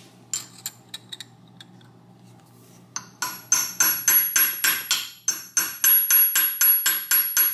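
Hammer tapping a small flat screwdriver against a stubborn Woodruff key to drive it out of its slot, metal on metal. A few light scattered taps at first, then from about three seconds in a steady, much louder run of blows about four a second.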